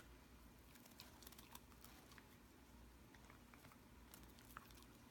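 Near silence: quiet room tone with faint, scattered small clicks and ticks.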